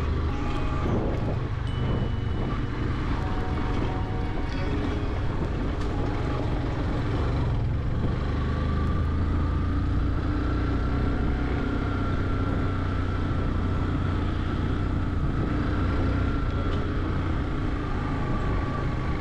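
Yamaha motorcycle engine running steadily under way, with a constant low engine note over broad road and air noise.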